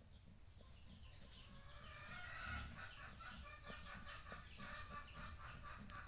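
Faint farmyard animal calls: many short overlapping calls, busiest a couple of seconds in.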